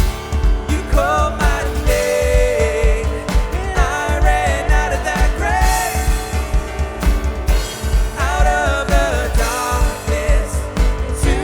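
Live worship band playing with singers' voices over a steady drum beat, with guitar, piano and synth.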